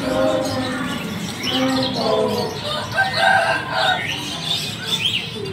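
Caged birds chirping and twittering, with a rooster crowing over them in several drawn-out calls.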